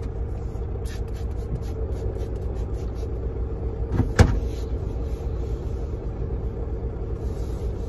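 Steady low rumble of a semi truck's idling diesel engine, heard inside the cab, with one sharp knock about four seconds in.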